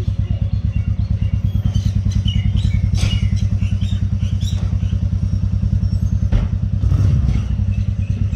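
A small engine idling steadily with a fast, even low putter.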